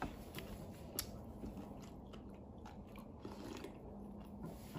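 People chewing and eating at a table, with scattered light clicks of chopsticks against stainless steel bowls; the sharpest clicks come at the start and about a second in.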